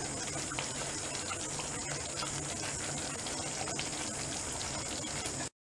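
Thick, creamy gravy simmering in an aluminium kadhai on the stove: a steady low bubbling hiss with faint small pops. It cuts off abruptly just before the end.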